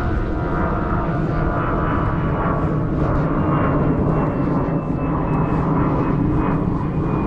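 A loud, steady motor drone with several held tones, cut off abruptly at the end.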